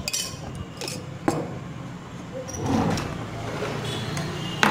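Scattered clinks and sharp knocks of utensils and containers being handled on a counter, with the loudest knocks about a second in and near the end, over a steady low hum.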